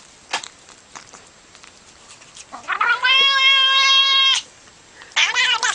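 Domestic cat meowing: one long, drawn-out meow held at a steady pitch, then a shorter wavering meow near the end. A few soft clicks come before it.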